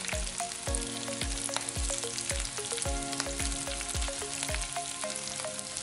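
Background music with a steady beat, over oil sizzling in a hot cast-iron grill pan.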